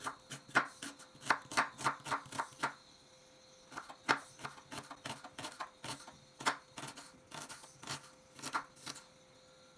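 Chef's knife finely chopping an onion on a bamboo cutting board: a quick run of crisp knife strokes through the onion and onto the wood, a short pause about three seconds in, then more strokes at an uneven pace.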